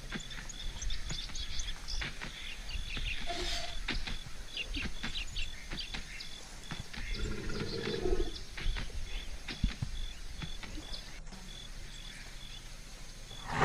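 Birds chirping and calling over outdoor ambience, with a rapidly repeated high note and a brief lower call about seven seconds in.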